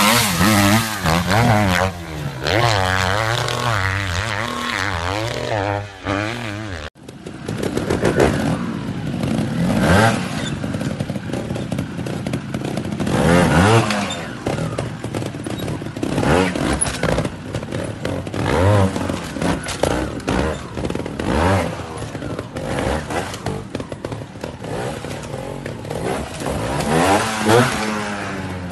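Dirt bike engine revving hard with its pitch rising and falling as it is ridden through a sand corner. After a cut about seven seconds in, trials motorcycles give short sharp throttle blips every few seconds as they hop across rocks, with knocks and clatter between.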